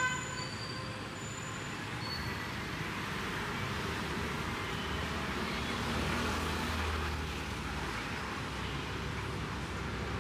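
City street traffic noise: a steady wash of passing vehicles, with a low engine hum swelling for a couple of seconds around the middle.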